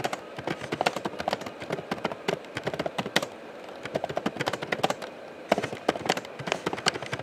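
Fast typing on a laptop keyboard: rapid, irregular key clicks in runs, with a couple of brief pauses.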